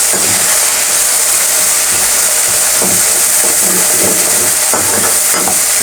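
Onion and garlic, ginger and chilli paste sizzling steadily in hot oil in a kadai, with a few short knocks of stirring from about halfway through.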